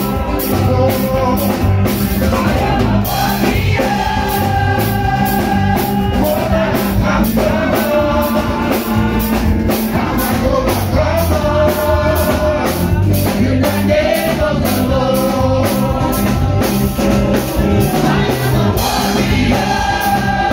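Live amplified gospel band: a drum kit keeps a steady beat under keyboard and guitar, while singers sing the melody into microphones.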